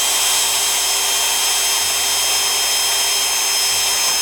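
Electric drill running at a steady speed with a high whine, boring small holes beside a crack in a plastic snowmobile windshield.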